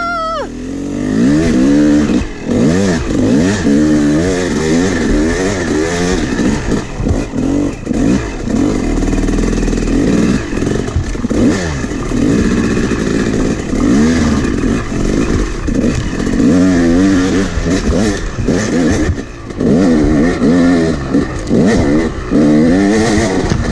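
Yamaha YZ250 two-stroke dirt bike engine revving up and down over and over as it is ridden on a rough trail, with frequent knocks and rattles from the bike over the bumps.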